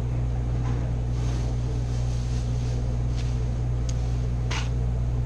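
Steady low hum of a building's air-conditioning running, with a few faint ticks and one short rustle about four and a half seconds in.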